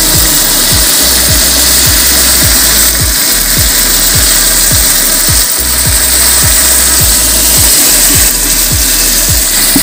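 Background music with a steady beat: low bass-drum thumps about twice a second over bass notes and a dense hissing texture.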